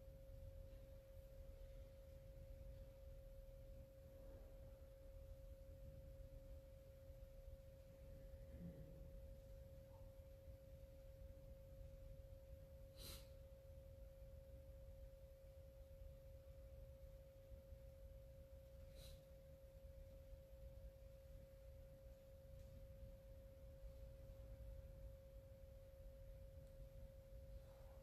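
Near silence: room tone with a faint, steady single-pitched hum over a low rumble. Two faint clicks sound, about halfway through and again later.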